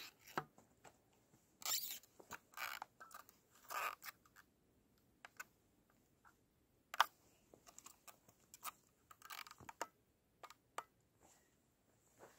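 A person handling a 3D-printed airsoft RPG-7 replica: scattered rustling and crunching of clothing and snow, with a few sharp clicks, the loudest about seven seconds in.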